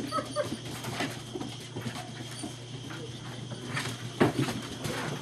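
German Shepherd puppies play-fighting: a few brief squeaky whimpers and yips among scuffling and bumps of bodies and paws.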